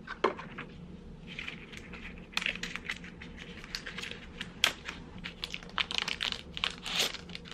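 Packaging being handled and unwrapped: paper and a small cardboard box rustling, then a thin plastic bag around the lens crinkling as it is pulled open, with many small clicks and taps.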